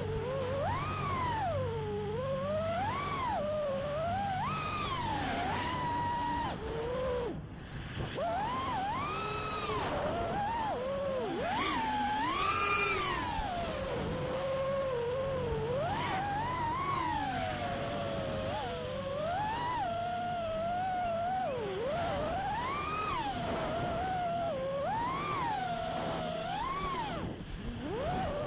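Brushless motors of a 5-inch FPV quadcopter (T-Motor Velox V2207 2550KV) whining, the pitch sweeping up and down with constant throttle changes. The sound briefly drops away about seven seconds in, and there is a sharp, loud punch with a rush of noise around twelve seconds.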